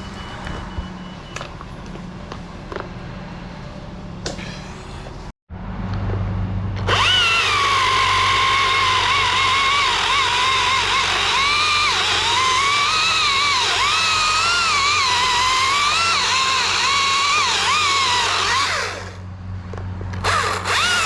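A low engine hum at first. Then a chainsaw runs at high revs, cutting, its pitch dipping and rising as it takes load. It stops briefly a little before the end and starts up again.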